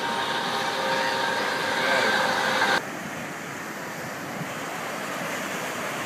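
Helicopter flying overhead, its engine whine holding a few steady tones, cut off abruptly about three seconds in. Steady surf and wind noise on the microphone follow.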